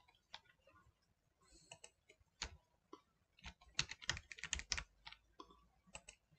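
Faint, irregular keystrokes of typing on a computer keyboard, with a quick cluster of taps a little past the middle.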